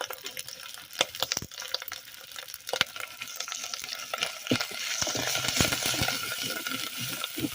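Spice paste of onion, garlic and ginger frying in hot mustard oil, sizzling while a spoon scrapes and clicks against the pan as it is stirred. The sizzle swells about three seconds in.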